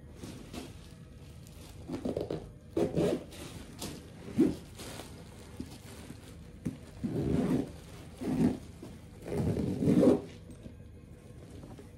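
Canvas backpack being handled, its fabric rubbing and scraping in about six short bursts.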